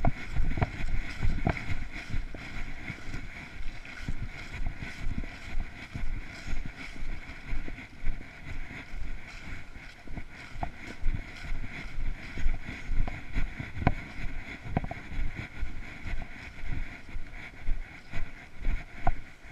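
Footsteps walking at a steady pace over grass and dry fallen leaves, about two steps a second, over a steady hiss.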